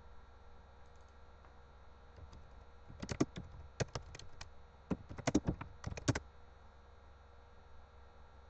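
Computer keyboard keys clicking in a few short runs, from about three seconds in to just past six seconds, over a faint steady hum.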